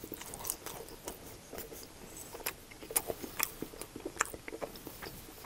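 Close-miked chewing of a mouthful of steak and cheese quesadilla in a flour tortilla. Irregular soft wet smacks and small clicks.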